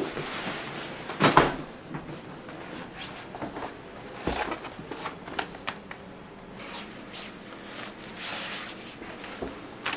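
Rustling and handling of clothes as a wool coat is unbuttoned and taken off and a tie is pulled loose, with a thump about a second in and a few sharp clicks in the middle.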